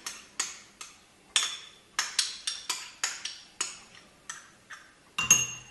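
A metal spoon clinking repeatedly against a glass, about three light strikes a second, as yeast is stirred into water to dissolve it. The clinks are somewhat louder near the end.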